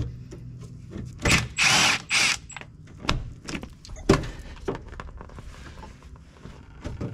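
Hand tools working on the metal clips and fittings of the all-wheel-steering lines under a car: a brief loud burst of noise about a second and a half in, then scattered metal clicks and knocks.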